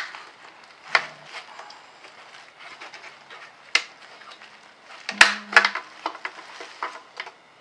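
Plastic clicks and rustling as gloved hands work the bulb sockets on BMW E36 tail light housings lying on bubble wrap. Sharp snaps come about a second in, near four seconds, and twice just after five seconds.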